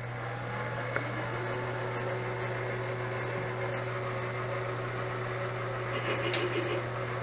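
Mill with a boring head cutting the pilot-bearing bore in a small-block crankshaft; the cut sets in about a second in and carries on with a steady ringing tone, which the machinists put down to resonance ringing through the part.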